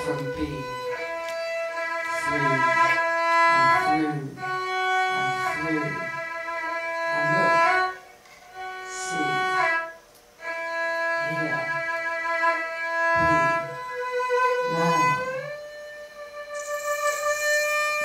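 Erhu playing long, held bowed notes that step and slide between pitches, breaking off briefly about eight and ten seconds in, over a lower wavering sound.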